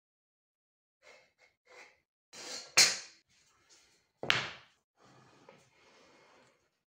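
A wooden block and a metal try square handled on an MDF board: a few light rubs, two sharp knocks as they are set down (the first the louder), then a faint scraping as the block slides along the board.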